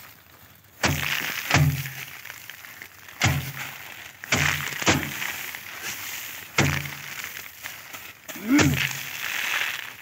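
Bundles of harvested rice stalks beaten by hand against a drum to thresh out the grain: seven heavy thuds at uneven intervals, two men taking turns, each followed by a rustle of straw and scattering grain.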